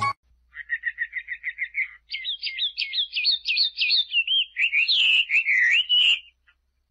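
A small songbird singing: first a quick run of short chirps, then a louder series of higher whistled notes that swoop up and down, ending about six seconds in.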